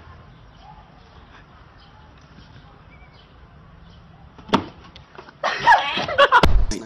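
Quiet outdoor background, then a sharp knock a little over four seconds in, followed by loud shouting with several bangs and a heavy thud near the end.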